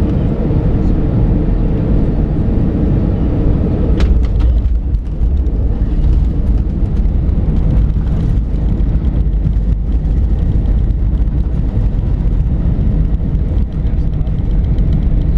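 Airbus A320-232 cabin noise on landing: its IAE V2500 engines and a deep rumble as it touches down and rolls out on the runway. There is one sharp knock about four seconds in, after which the rumble turns rougher and bumpier as the spoilers stand up on the wing.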